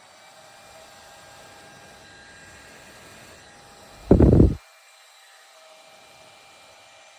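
Small handheld personal fan running with a steady airy hiss and a faint motor whine. About four seconds in there is a brief, loud, low rumbling bump lasting about half a second.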